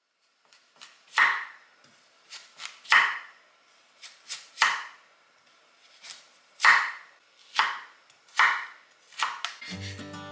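Kitchen knife chopping food on a cutting board: slow, uneven single cuts, the heavier ones every second and a half to two seconds with lighter ones between.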